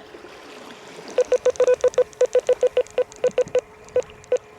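Quick run of short electronic key beeps, about fifteen in three seconds, irregularly spaced, from buttons being pressed on a handheld marine VHF radio to put it back on the right channel.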